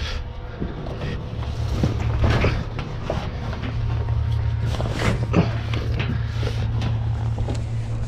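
An engine running steadily with a low hum, under irregular rustling, scraping and knocking as a tarpaulin is pulled and handled over a grain trailer.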